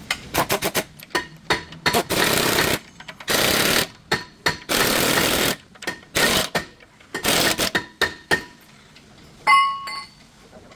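Impact tool hammering in four short bursts of about a second each, with quick clicks and taps between them, as stabilizer link fittings are worked on. A brief ringing tone sounds near the end.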